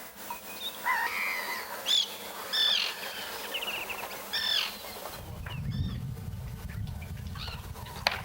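Birds calling: a handful of short, high calls and a quick trill over the first few seconds, with a low rumble coming in about five seconds in.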